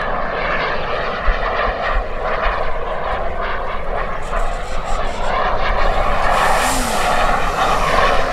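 Turbine engine (EvoJet 220) of a BVM Renegade RC jet running in flight. It is a steady jet rush that grows louder and hissier in the last couple of seconds as the jet comes closer.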